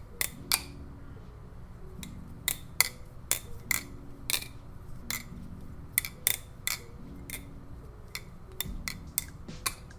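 Squid Industries Tsunami balisong being flipped: sharp metal clacks and clicks at an irregular pace, often in quick pairs, as the handles swing and knock together.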